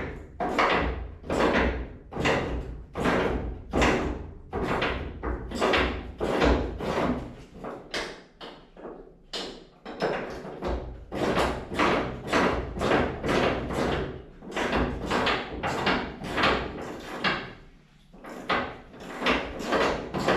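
Hand ratchet wrench working loose the last door-hinge bolt on a 1973 Ford F100, in quick repeated strokes about two a second, each a short burst of ratchet clicks. The strokes pause briefly twice.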